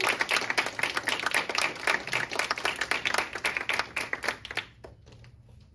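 Audience applauding with dense hand claps that thin out and die away about five seconds in, leaving a few scattered claps.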